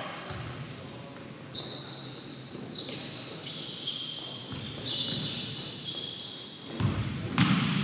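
Futsal play echoing in a large indoor hall: shoes squeaking on the court and the ball being struck, with a loud thump about seven seconds in.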